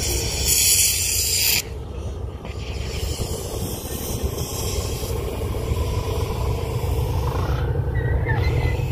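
Diesel engine of a wooden fishing trawler running steadily at low pitch as the boat moves. A loud hiss over it cuts off suddenly about a second and a half in.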